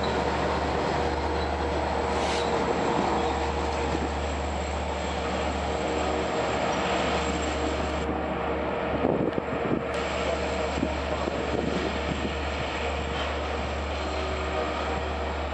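Long Island Rail Road push-pull commuter train of bilevel coaches rolling past at low speed, a steady rumble of steel wheels on rail. A cluster of sharp clacks comes about nine seconds in as wheels cross the switches. Its DM30AC locomotive, pushing at the rear, draws level near the end.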